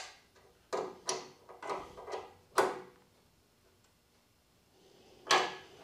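Locking nuts being run down and tightened on a 4th-axis mounting bracket's adjustment bolt: a few short, irregular metal clicks in the first three seconds, then another shortly before the end.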